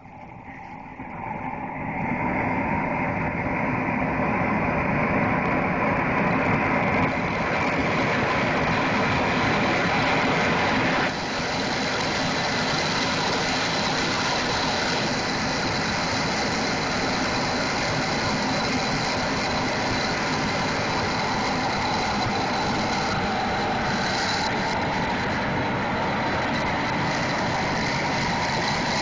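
Three propane jet burners of a crawfish cooker burning with a steady rush of gas. They are turned up over the first two seconds as the flames go from lazy yellow to hard blue, then hold steady, a little quieter from about eleven seconds in.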